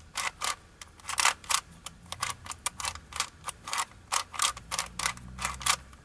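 Aluminium Rubik's Cube being twisted quickly during a solve: an irregular run of sharp clicks and clacks, about three or four a second, as the metal-capped layers turn and knock into place.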